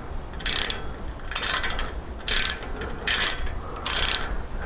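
Socket ratchet wrench clicking in five short runs, about one a second, as it is swung back and forth to tighten a front-fork mounting bolt on a motorcycle.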